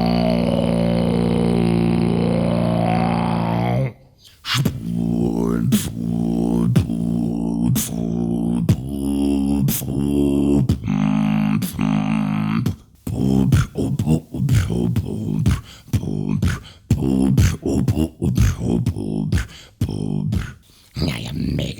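Beatboxing: a held, droning vocal tone with a sweeping overtone for about four seconds, then it breaks off into a fast rhythmic beatbox pattern of vocal bass notes and sharp mouth clicks.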